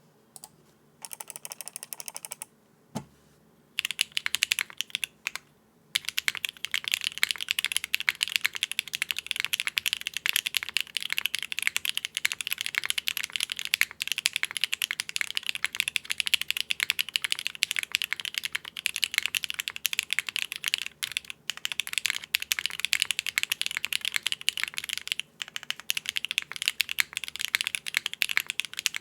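Mechanical keyboard typing on a Cycle7 board with factory-lubed BSUN Strawberry Wine (SSW) V1 linear switches in a polypropylene plate with no foam, giving a clacky sound. A few separate keystrokes come first, then fast continuous typing from about four seconds in, with two short pauses.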